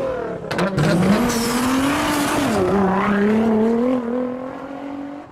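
Sports-car engine revving: the pitch climbs, dips about two and a half seconds in, then holds and fades toward the end, with a couple of sharp pops just after the start.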